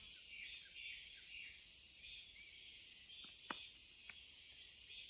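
A dense, high-pitched chorus of summer insects, faint and steady with a pulsing texture, and one short sharp click about three and a half seconds in.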